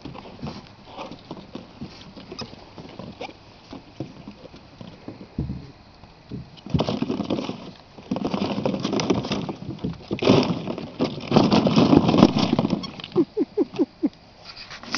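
Hollow plastic ball-pit balls clattering and rattling against each other and the plastic sandbox as puppies scramble through them: light scattered clicks at first, then dense rattling in two spells from about seven to twelve seconds in. A few short squeaks near the end.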